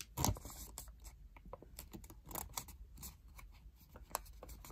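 Colour paper being folded and creased by hand: irregular soft crackles and rustles, with a louder crackle about a quarter second in.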